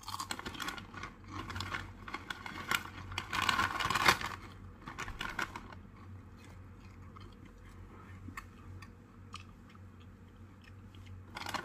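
Close crunching and chewing of Haunted Ghost Pepper tortilla chips, dense for the first six seconds and loudest around four seconds in, then thinning to occasional quieter crunches.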